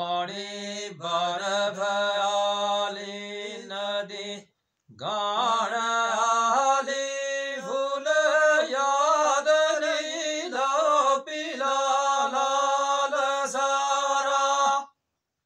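Unaccompanied male folk singing in long held, ornamented notes that slide between pitches, in two phrases with a brief breath break about four and a half seconds in.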